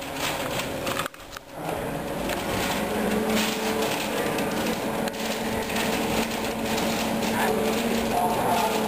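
Masking paper and tape crinkling and rustling as a car is being taped off for paint, over a steady low hum.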